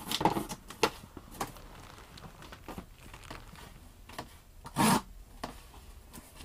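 Cardboard helmet boxes being handled and opened: short scrapes and rustles of the flaps, with one louder tearing sound nearly five seconds in.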